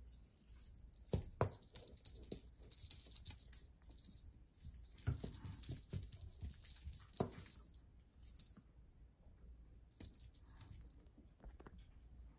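Small bell on a cat wand toy jingling in shaken spurts, stopping and starting, with a brief flick and a final spurt in the second half. A few soft knocks come in among the jingling as the toy is batted.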